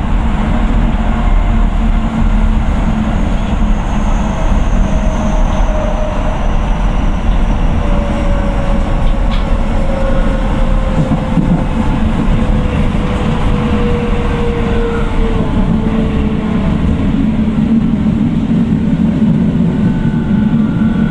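Keio 9000 series train with a Hitachi IGBT VVVF inverter running, heard inside the car: a steady rumble of wheels on rail, with a faint motor whine that slowly falls in pitch.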